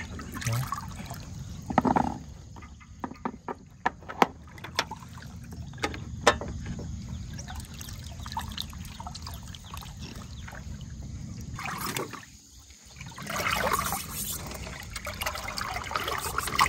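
Steady trickling and lapping of river water, with a run of sharp clicks between about two and seven seconds in. The water sound drops out briefly around twelve seconds, then comes back louder.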